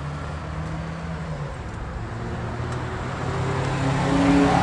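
Honda Accord driving back toward the listener, its engine hum growing louder over the last second or two.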